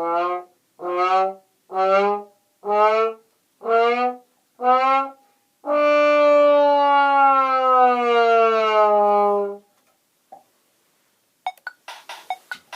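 A brass horn sounding six short notes about a second apart, then one long held note that sags slightly in pitch. Scattered sharp clicks follow near the end.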